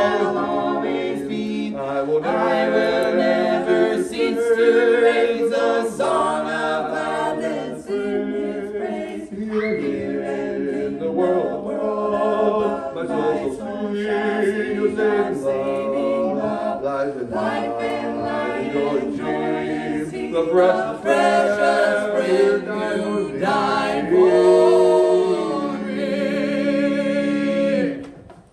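A small vocal group singing a cappella in harmony, several voices holding and changing chords; the singing stops just before the end.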